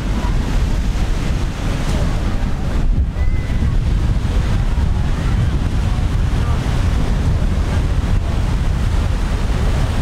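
Steady wind buffeting the microphone with a heavy low rumble, over the wash of Gulf surf.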